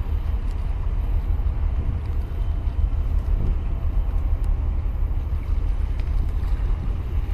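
Wind buffeting the microphone in a steady low rumble, with sea water washing around the concrete breakwater blocks.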